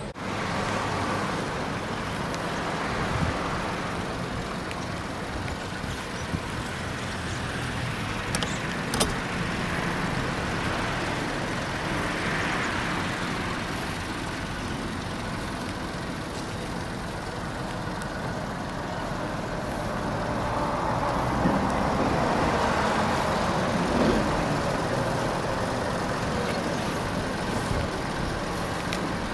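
A kei-truck camper van with a 660 cc engine driving slowly across a paved lot: the small engine running with tyre noise, swelling twice as it comes closer.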